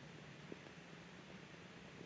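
Faint steady white-noise hiss with a low hum beneath it, and one soft click about half a second in.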